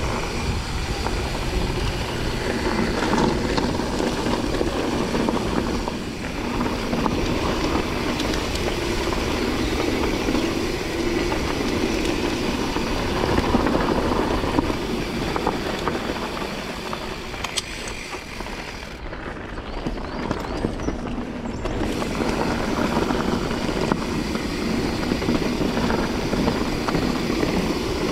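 Mountain bike riding a dirt trail: a steady rush of wind and tyre rumble on the rider's action-camera microphone, with small clicks and knocks from the bike. It softens for a few seconds about two-thirds of the way through.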